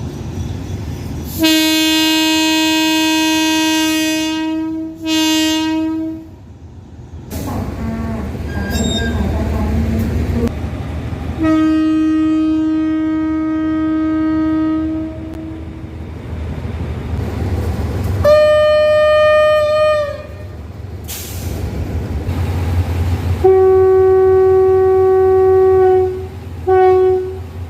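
Train horns sounding in a series of separate blasts, each a steady multi-toned note at a different pitch: a long blast followed by a short one, two more single long blasts, then a long blast and a short one near the end. The low rumble of a running train fills the gaps between them.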